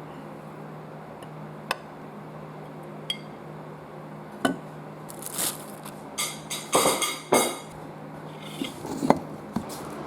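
Dishes and cutlery clinking and clattering, with scattered knocks and a busier run of clatter a little past the middle, over a steady low hum.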